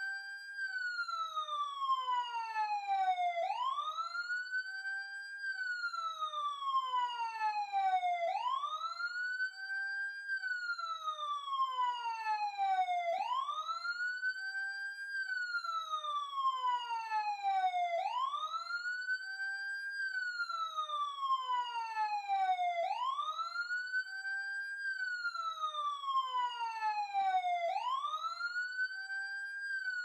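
Emergency siren heard close up, sounding a slow wail: each cycle rises quickly in pitch, then slides down slowly over about three seconds, repeating about every five seconds.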